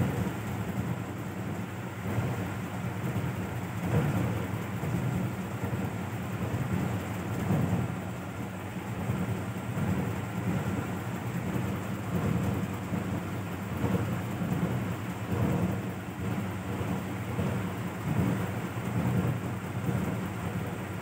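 Mother cat purring steadily while nursing her kittens, a low rumble that swells and eases every second or two with her breathing.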